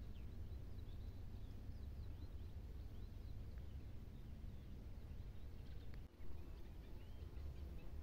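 Small birds singing and chirping in the dusk chorus: many short high notes and quick glides, over a steady low rumble. About six seconds in, the sound dips briefly and there is a short knock.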